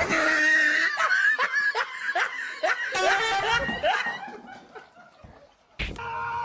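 A person laughing hard in a quick run of short, choppy bursts that fade out after about four seconds. Near the end a steady tone starts abruptly.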